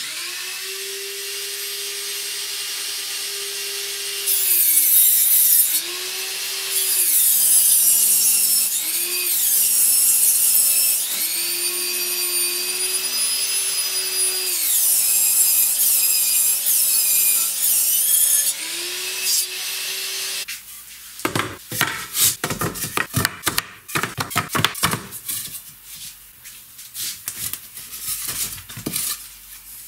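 Table saw running and ripping a softwood beam lengthwise, the motor's pitch sagging each time the blade bites into the wood. About two-thirds of the way in the saw stops and wooden beams knock and rub as they are handled.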